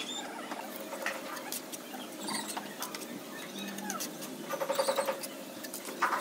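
Scattered light taps and scrapes of a mason's steel trowel and straightedge against fresh mortar on a rendered concrete column.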